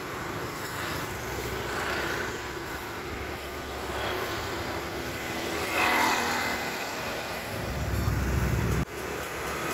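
Street traffic: motorbike engines running past along a road in a steady wash of noise. A louder low rumble builds near the end and cuts off suddenly.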